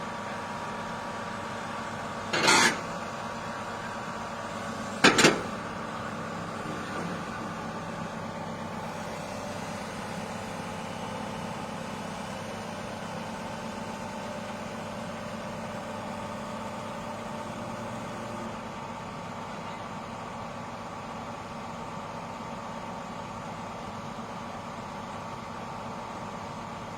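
Heavy diesel engine running steadily at a constant speed. Two short, loud blasts of noise cut in, about two and a half seconds apart early on.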